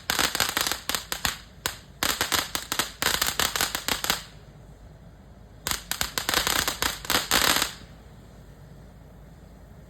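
Consumer firework fountain crackling: a dense, rapid run of sharp pops for about four seconds, a short pause, then a second burst of crackling for about two seconds.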